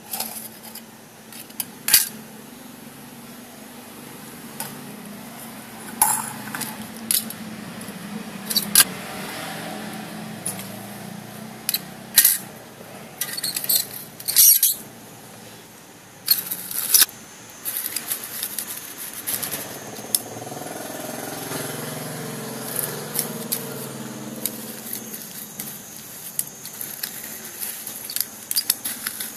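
Thin tin cans and a stainless-steel scouring pad being handled and pressed together by hand: scattered sharp metallic clicks and taps with some scraping.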